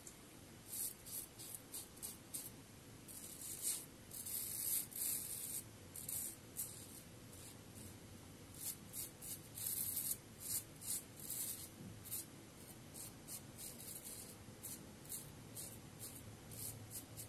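Fatip slant double-edge safety razor scraping through beard stubble: many short scratching strokes in quick irregular runs.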